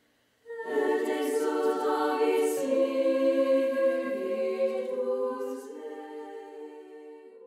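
Choir of nuns' voices singing a slow phrase of long held notes, starting about half a second in and fading away near the end.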